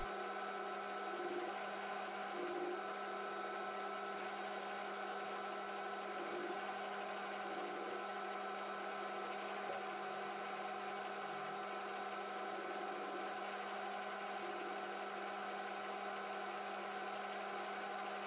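Metal lathe running steadily, a hum of its motor and gears with a few constant tones, as a carbide insert tool turns and chamfers a steel part.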